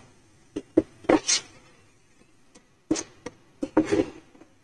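A spatula scraping and knocking against a nonstick frying pan while stirring a thick semolina-and-milk paste, in short irregular strokes.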